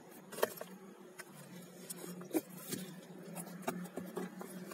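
Irregular clicks and crunches of movement over stony, rubbish-strewn ground, with the loudest about half a second in and again after about two and a half seconds.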